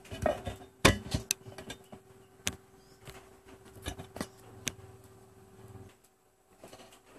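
Scattered sharp clicks and light knocks of objects being handled on a tabletop, over a faint steady hum that stops about six seconds in.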